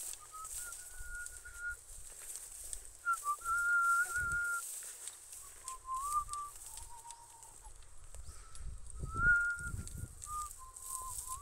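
A person whistling a slow tune in long held notes, each about a second, stepping down and back up in pitch.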